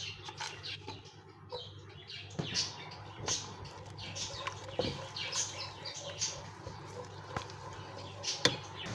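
Chopped onions sizzling and crackling in hot oil in a non-stick wok while being stirred with a spatula, with a few sharp knocks of the spatula on the pan.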